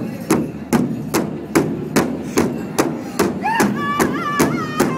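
Powwow drum group: a big drum struck in a steady beat, about two and a half strokes a second. About three seconds in, a single high-pitched voice comes in, leading the song.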